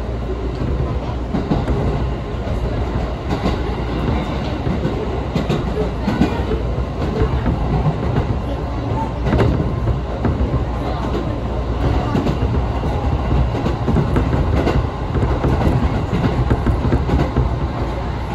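Electric train running, heard from inside the passenger car: a steady low rumble of wheels on rail with scattered short clicks.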